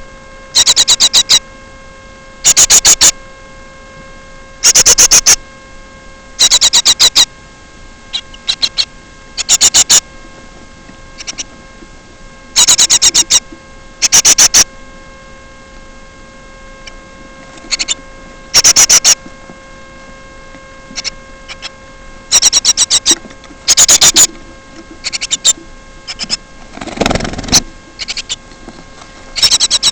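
A bird's loud, buzzy calls close to the microphone, repeated in short bursts every second or two over a steady electrical hum. Near the end there is a brief rustling scrape.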